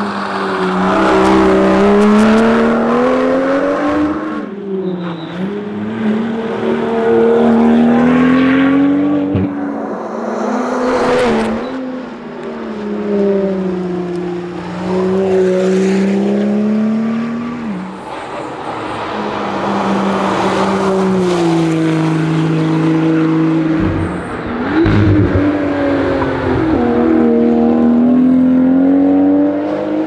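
BMW M2's turbocharged straight-six at race pace, revving up through the gears with sharp drops in pitch at each shift and when lifting off for corners, repeated over several bends.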